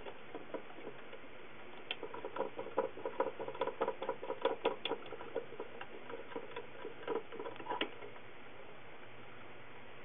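Quick, irregular metallic clicking from a wrench working the screw of a two-jaw puller on a centrifugal blower motor's hub during a bearing change. The clicks bunch up in the middle stretch, with only a few before and after.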